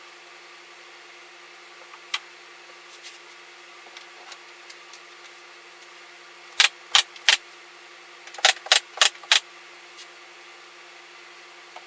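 Sharp knocks or taps, three in quick succession and then, about a second later, a faster run of five, over a steady background hum.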